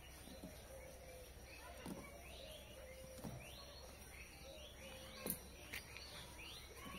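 Faint chirping of small birds, many short rising chirps one after another, with a few light knocks as sticks are handled at the clay stove, the sharpest a little past five seconds in.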